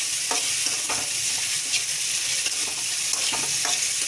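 Sliced onions and green chillies sizzling in hot oil in a metal kadhai, with a steady hiss. A spatula scrapes and clinks against the pan about five times as they are stirred.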